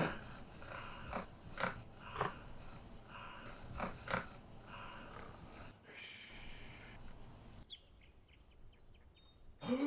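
Crickets chirping steadily, with a few soft taps now and then; the chirping cuts off abruptly about eight seconds in, leaving only faint quiet ambience.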